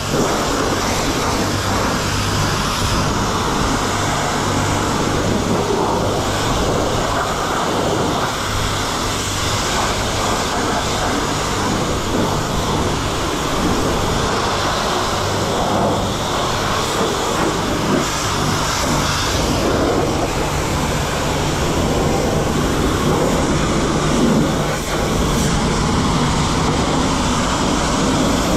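Self-service car wash pressure wand firing a steady high-pressure jet of water onto a pickup truck, with a steady low hum underneath.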